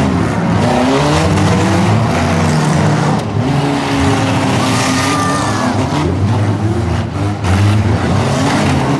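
Compact four- and six-cylinder demolition-derby car engines revving hard and dropping back again and again, with a short high squeal about five seconds in.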